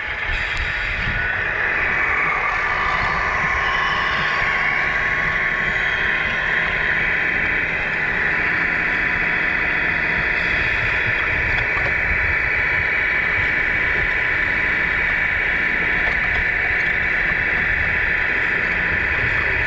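Tamiya 1/14-scale RC semi truck driving: a steady high whine from its drivetrain over a low rumble, getting louder about two seconds in and then holding steady.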